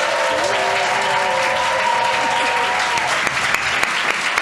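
Audience clapping loudly, with several voices holding long cheers that stop about three seconds in while the clapping goes on. The noise is a show of approval, rated by how loud it is.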